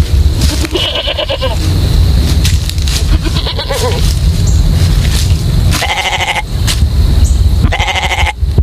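An animal calling four times, short pitched cries about half a second each and a couple of seconds apart, over a steady low rumble.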